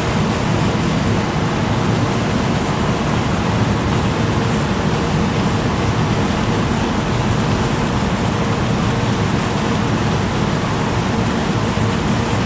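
The ferry Katsuragi's engines and propeller wash churning the water alongside as she berths: a loud, steady rush of noise with a faint steady hum underneath.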